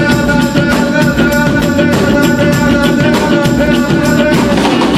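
Live rock band playing: a drum kit keeps a steady beat under guitar and held notes, with no singing in this stretch.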